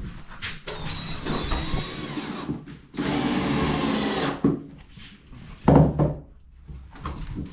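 Cordless power driver driving screws into wooden floor joists to stop the floor squeaking: two runs, the first rising and falling in pitch for about two seconds, the second a steady whine for about a second and a half. A short loud thump follows about six seconds in.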